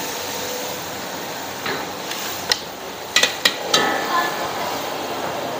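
A metal utensil knocking against a metal cooking pot: one clank, then a quick run of four, the last one ringing briefly, over a steady rushing background.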